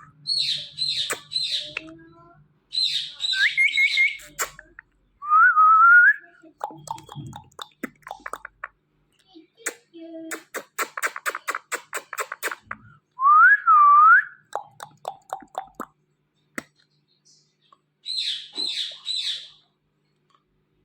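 A pet talking parrot whistling: rising whistled notes and quick groups of three high chirps. A fast run of clicks comes in the middle.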